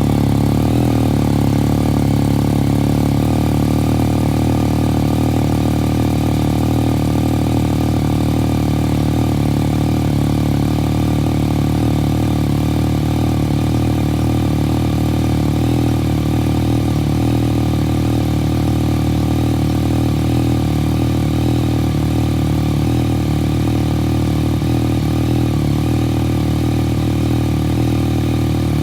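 2016 Yamaha FZ-09's 847 cc inline-three idling steadily through an M4 slip-on exhaust with the baffle installed.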